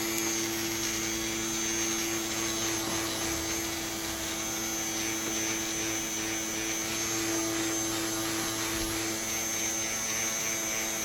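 Small electric fan running steadily, a motor hum with a faint high whine, blowing on freshly shrunk heat shrink tubing to cool it.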